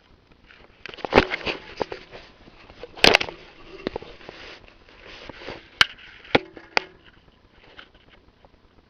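Handling noise from a camera rubbed against clothing: rustling with several sharp knocks and clicks, loudest about one and three seconds in and again around six seconds.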